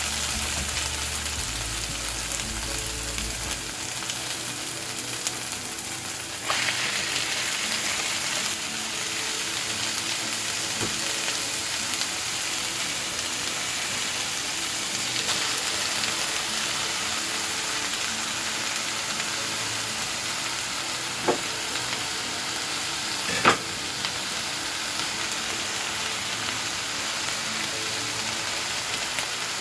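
Chopped purslane sizzling as it fries on browned onions, a steady hiss with occasional stirring. A few sharp utensil knocks against the pan, the loudest about 23 seconds in.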